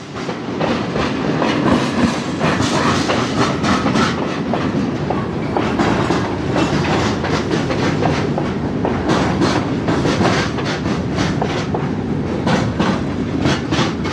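Freight cars, covered hoppers, rolling past on jointed rail: a steady clickety-clack of wheels striking the rail joints over a rolling rumble.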